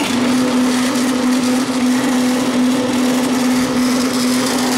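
Tomra T-X2 reverse vending machine's motor running with a loud, steady hum. It starts abruptly and cuts off near the end.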